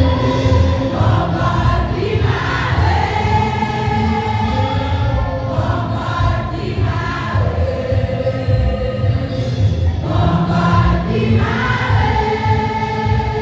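A choir singing a church hymn with instrumental accompaniment and heavy bass, voices holding long sung notes.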